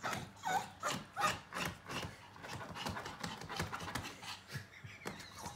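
A Yorkshire terrier scratching and pawing at the fabric side of a soft-sided pet crate, trying to get in: quick repeated scrapes, about three a second at first and faster and lighter after about two seconds.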